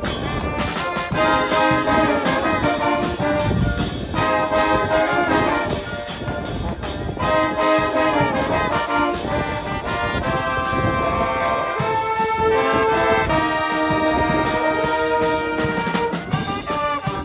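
School brass band playing a piece live outdoors: held brass chords from tubas, trombones and trumpets over a drum kit and bass drum, the notes changing every second or so.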